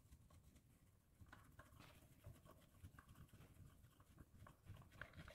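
Faint, irregular ticks and scrapes of a hand screwdriver turning long screws through a metal cabinet hinge into a wooden flap.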